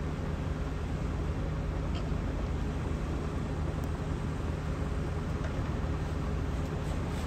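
Diesel engine of a Hitachi ZAXIS 210K hydraulic excavator running steadily, an even low hum with a couple of faint ticks.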